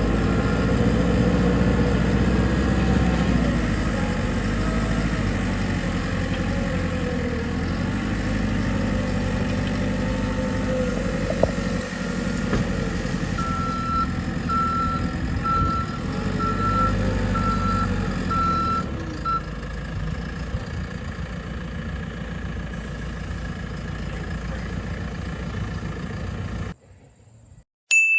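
JCB 3CX 14 backhoe loader's diesel engine running steadily. Midway through, its reversing alarm beeps six times, about once a second, as the machine backs up. The engine sound cuts off abruptly near the end.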